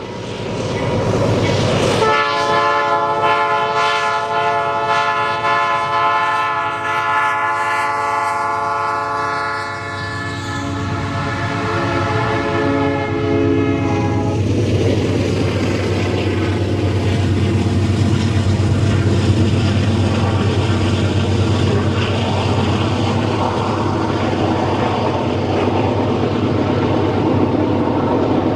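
Locomotive air horn sounding one long, steady chord for about twelve seconds, starting about two seconds in and cutting off sharply. Then the steady low rumble and rail noise of the moving train.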